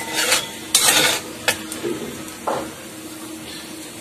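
Metal spatula scraping and stirring in a metal kadai of hot mustard oil with whole spices and asafoetida: four or so quick scrapes in the first two and a half seconds, then only the oil sizzling gently on a low flame.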